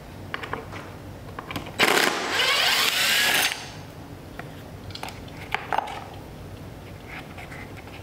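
Cordless drill-driver running for about a second and a half as it backs a screw out of a door-frame strike plate, its whine wavering in pitch. A few small metallic clicks and taps follow as the loosened plate and screws are handled.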